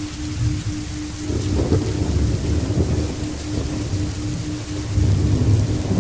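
Steady rain with thunder rumbling low, swelling about a second in and again near the end. A faint pulsing low tone runs underneath.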